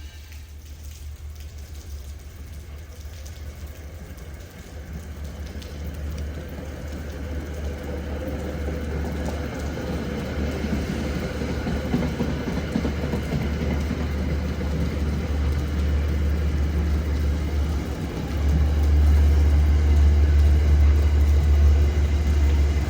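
Metro-North train led by a GE P32AC-DM locomotive approaching the station, a low rumble building steadily and growing noticeably louder near the end.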